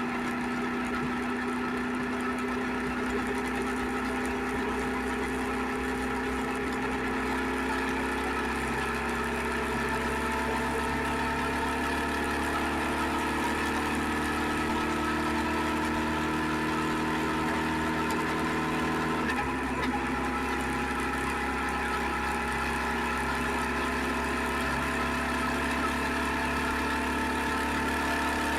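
SVT650X motorcycle engine running steadily, its note drifting slowly and changing pitch in steps about 9 seconds in and again about 19 seconds in.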